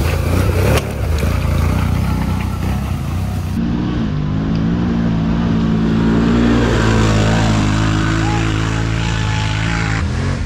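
ATV engines running and revving hard under load during an off-road race, the engine note changing abruptly about three and a half seconds in.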